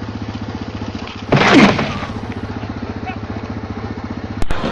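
An engine running steadily with a rapid even pulse. About a second in, a sudden loud noisy burst with a falling tone cuts across it.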